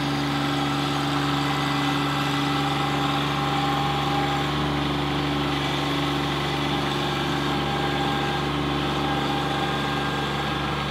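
Kubota B2601 compact tractor's three-cylinder diesel engine running steadily at an even speed.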